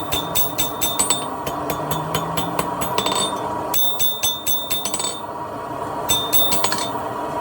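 Blacksmith's hammer striking steel on an anvil in quick runs of about four or five blows a second, each blow ringing brightly, in four bursts with short pauses between. A steady hum runs underneath.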